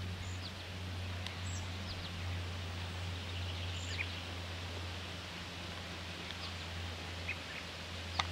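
Outdoor ambience: scattered short bird chirps over a steady low hum and a constant noisy wash.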